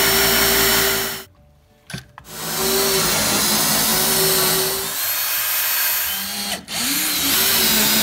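Cordless drill driving a hole saw into a wooden door to bore a deadbolt hole: a steady motor whine over the noise of the saw cutting wood. The drill stops about a second in, starts again a second later, and stops briefly once more near the end before spinning back up with a rising whine.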